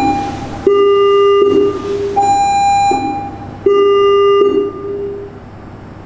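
Fire station alarm tone: loud electronic notes, a higher note followed by two lower ones, heard twice, each note held about a second and then fading. It signals an incoming call-out ahead of the spoken dispatch announcement. The tones die away about five seconds in.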